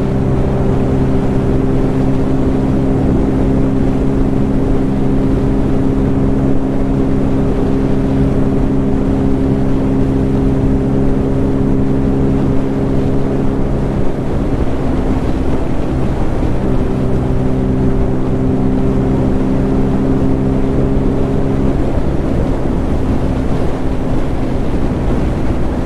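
Bajaj Pulsar N250's single-cylinder engine at a steady cruise, its note holding one pitch over wind rush. The engine tone fades for a couple of seconds about halfway through, then returns at the same pitch.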